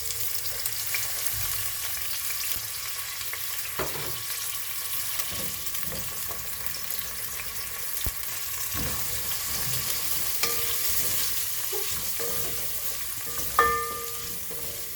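Onions frying in hot oil in a pot, a steady sizzle, with a few knocks of a spoon stirring against the pot and a short ringing clink near the end.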